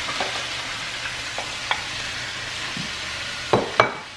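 Chopped celery sizzling in hot beef tallow in a frying pan: a steady hiss that slowly dies down. A few sharp knocks against the pan, the two loudest near the end.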